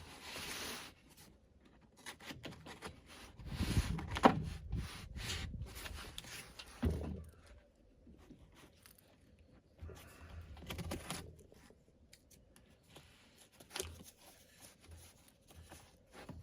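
Cardboard shipping box being opened by hand: packing tape tearing and cardboard scraping and rustling in irregular bursts, with a sharp knock about four seconds in.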